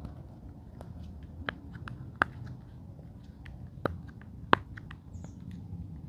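Irregular small sharp clicks and taps of plastic fidget toys being handled. Three louder clicks stand out: a little past two seconds, near four seconds and about four and a half seconds in.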